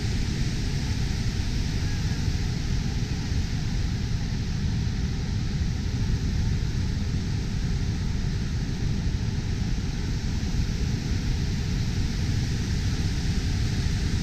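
Niagara Falls' Horseshoe Falls pouring into the gorge: a constant, deep rushing noise of falling water that never lets up.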